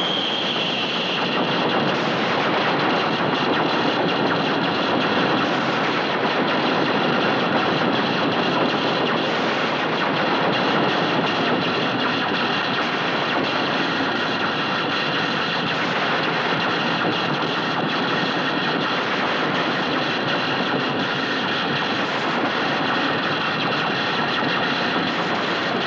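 Harsh noise music: a dense, unbroken wall of distorted noise full of rapid crackle, with a thin high whistling tone that fades out about a second in.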